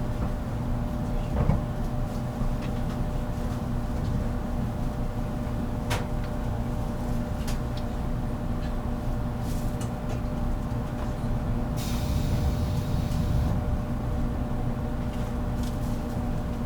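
Steady low hum inside a 783 series limited express motor car, with a few sharp clicks and a short hiss near the end.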